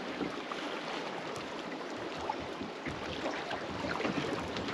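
Wind and small waves lapping around a small drifting fishing boat: a steady sea-and-wind noise with a few faint ticks.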